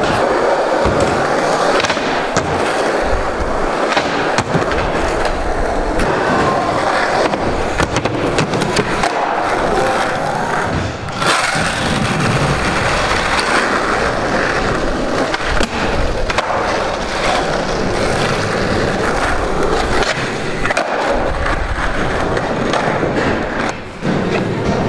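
Skateboard wheels rolling on a concrete floor, broken by repeated sharp clacks and thuds from tail pops, landings and the board hitting the ground.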